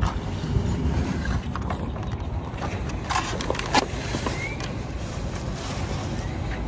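Steady low outdoor rumble with a few light clicks and taps of eating utensils and food containers.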